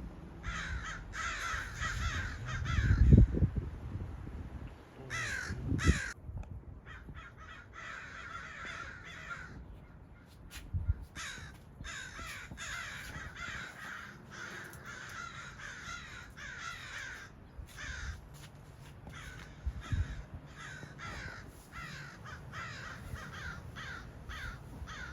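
Birds calling over and over in runs of noisy calls, with two low thumps about three and six seconds in.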